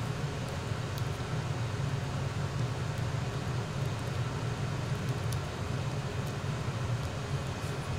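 A steady low hum under an even hiss, with a few faint light ticks.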